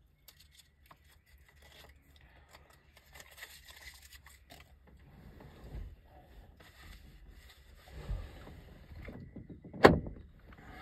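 Scattered light knocks and handling noises of outdoor carpentry work, with a couple of dull thuds and one sharp knock just before the end.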